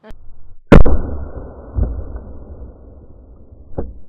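A single loud shotgun blast from a DP-12 double-barrel pump shotgun firing a 1-ounce slug, heard next to the target, which bursts a watermelon apart. A low rumble lingers for a couple of seconds after it, with two fainter thumps later.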